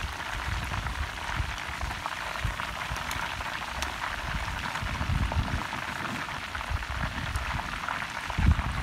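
Battered chicken pieces deep-frying in hot oil, giving a steady crackling sizzle. Irregular low rumbles lie underneath, with a louder low thump near the end.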